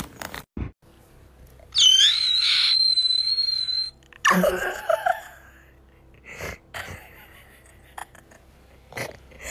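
A high, steady whistle that rises at its start and is held about two seconds, followed by a short pitched call; the high whistle starts again at the very end.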